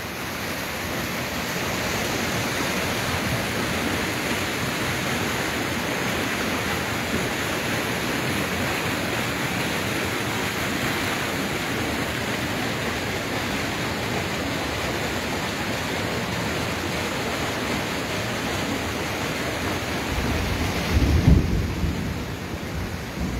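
Steady rain falling, an even hiss, with a brief low rumble near the end.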